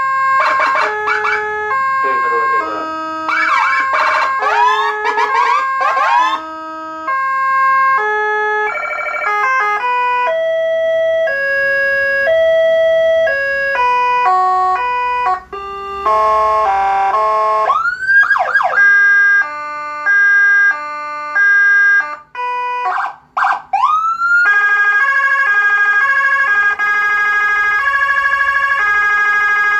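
Electronic ambulance siren cycling through its tone patterns. Quick stepped electronic tones and chirps are followed by rising wails about two-thirds of the way through and again around three quarters, then a long steady tone over the last few seconds.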